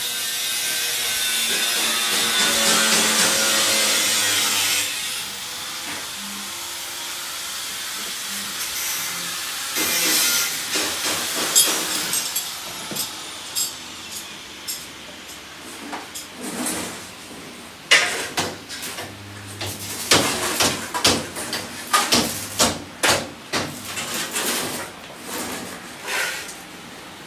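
Workshop noise from rickshaw-van body building: a steady hiss for the first few seconds, then many irregular sharp knocks and clanks of hand tools striking metal frames.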